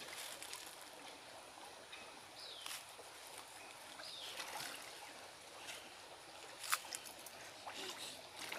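Faint outdoor water ambience: a quiet trickle of water, with scattered light clicks, two short high calls, and one sharper click about two-thirds of the way in.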